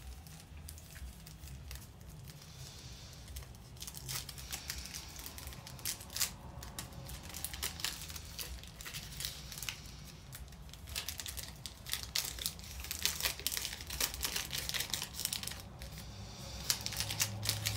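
Candy-bar wrapper crinkling and crackling as it is worked at and torn open by hand, a long run of irregular crackles that grows denser and louder in the second half: the wrapper is hard to get open.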